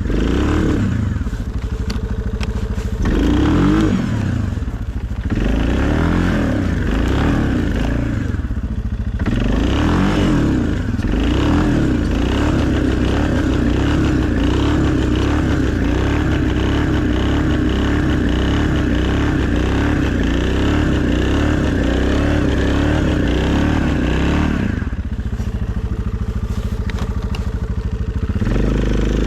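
2020 Suzuki KingQuad ATV engine running while plowing snow. Its revs rise and fall several times in the first few seconds, then hold steady for a long stretch before easing off near the end.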